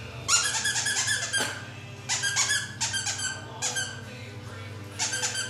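Squeaky dog toy squeaking over and over as a dog chews and squeezes it, in three runs of quick squeaks.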